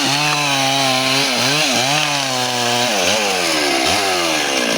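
Chainsaw cutting wood. The engine runs steadily at high speed for about a second, then its note drops sharply and picks back up again and again as the chain bogs down in the wood.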